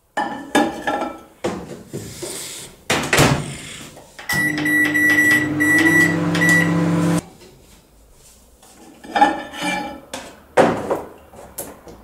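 Primo microwave oven: door and button clicks, then it runs with a steady hum for about three seconds, with a high beep sounding on and off, and cuts off suddenly. More door clatter and a plastic tub being handled follow. The oven runs but does not heat, since the water inside stays cold; the cause later proves to be a blown high-voltage fuse.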